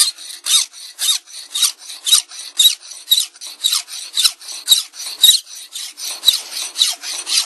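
Hand file rasping back and forth along a knife blade's cutting edge, in a steady rhythm of about two strokes a second.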